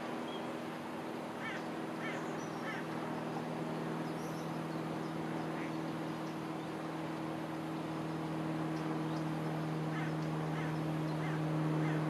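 Steady low engine drone that swells a little toward the end, over the even rush of water running through a shallow, rocky river. A few very short high bird calls come in two clusters of about three.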